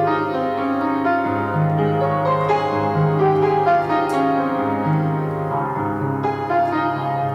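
Calm piano music, with held notes overlapping one another at an even level.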